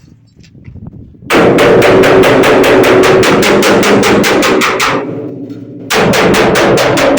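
Impact pulveriser running with a loud, rapid rattle of sharp knocks, about seven a second, over a steady machine hum. It starts about a second in, breaks off for about a second, then starts again.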